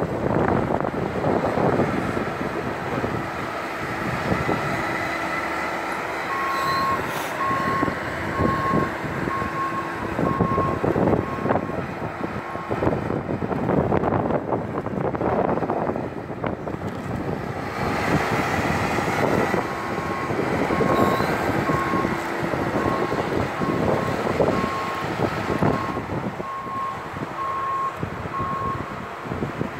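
A large vehicle's reversing alarm beeping, about three beeps every two seconds, in two spells of several seconds each, over steady vehicle rumble.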